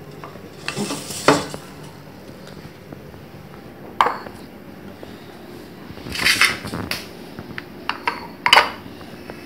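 Stainless-steel cooking vessels clanking as a steamed idli-cooker plate is lifted out with a cloth and set down: four separate groups of sharp metallic knocks with a short ring, about a second in, at four seconds, around six to seven seconds and near the end.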